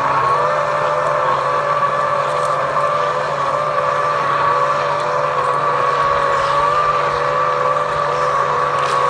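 Small motorboat's engine running steadily across the water, a constant drone whose pitch wavers slightly.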